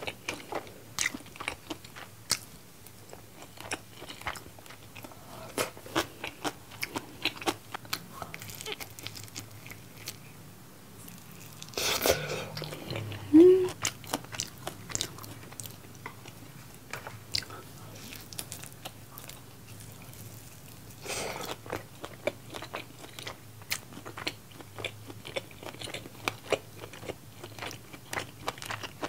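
Close-miked eating of yangnyeom (sweet-spicy sauced) fried chicken with rice: chewing, biting and crunching with many small wet mouth clicks and smacks. There is one brief, louder sound about halfway through.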